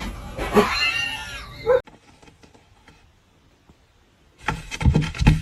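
A cat meows once: a single arching call about a second long, starting about half a second in. Near the end, a loud, noisy clatter of many sharp knocks begins.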